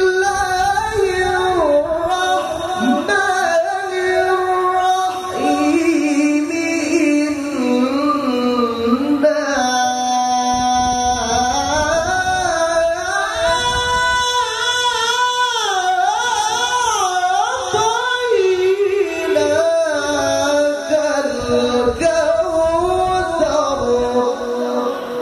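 A male qari recites the Qur'an in the melodic tilawah style, sung into a microphone. He draws out long melismatic phrases with wavering ornaments, and his voice climbs to high, trembling notes in the middle before settling lower near the end.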